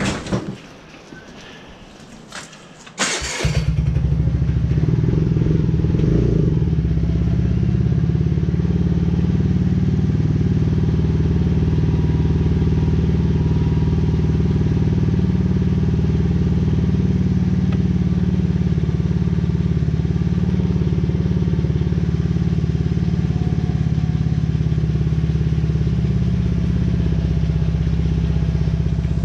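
A few clattering knocks, then a vehicle engine starts about three seconds in and settles into a steady idle.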